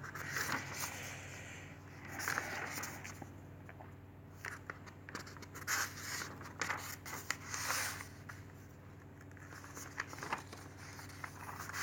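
Paper rustling and scraping as the pages of an instruction manual are handled and turned, in short irregular bursts with light clicks, over a faint steady hum.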